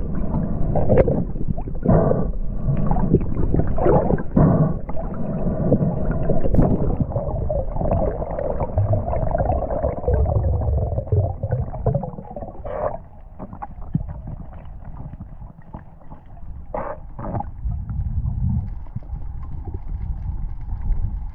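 Muffled water noise from an underwater camera held by a diving spearfisher: gurgling, with irregular surges in the first half. It turns quieter about halfway through, and three short knocks come in the second half.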